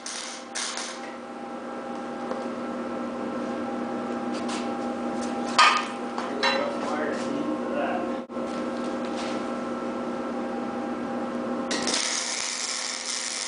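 MIG welding arc from a small Lincoln MIG-PAK 10 welder on a steel channel beam, crackling in short bursts at the start. A steady hum then carries on, with a few clicks and clanks around the middle. About 12 seconds in, the arc strikes again and crackles and hisses continuously.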